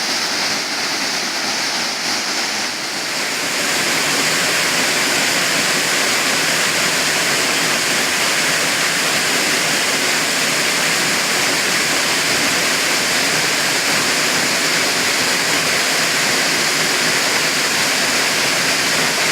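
Waterfall pouring into its pool at modest dry-season flow: a steady rushing of falling water that grows a little louder about three seconds in.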